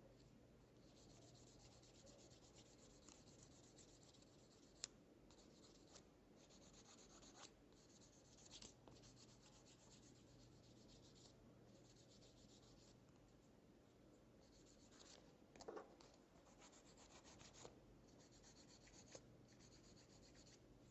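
Faint hand-sanding of an acetate eyeglass frame's nose area: sandpaper rubbing in short, uneven strokes of about a second each, with a couple of light sharp ticks.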